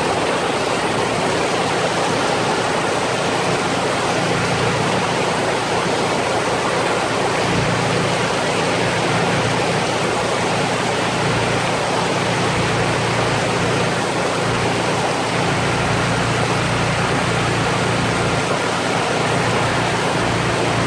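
Heavy rain pouring down: a loud, steady hiss of rainfall. A low hum comes and goes underneath from about a third of the way in.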